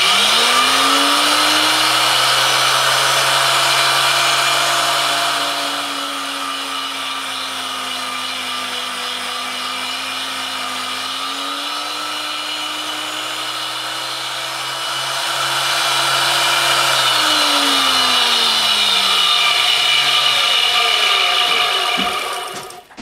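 Tool and cutter grinder motor starting up, its pitch climbing within about a second, then running with a high grinding hiss as the wheel grinds the angled point of a carbide D-bit blank. The sound is quieter through the middle, then the motor winds down, its pitch falling over the last few seconds.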